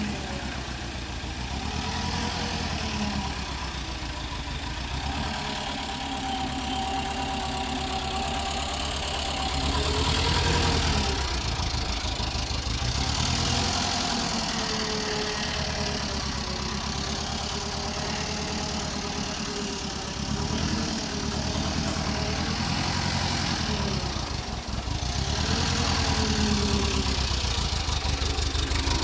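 Forklift engine running, its pitch rising and falling every few seconds as it is revved and eased off.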